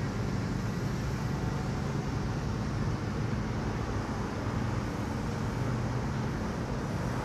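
Steady low rumble of outdoor urban background noise.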